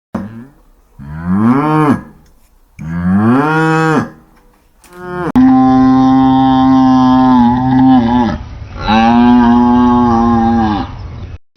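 Bovine lowing: a few short moos that rise then fall in pitch, then two long, steady moos from another recording.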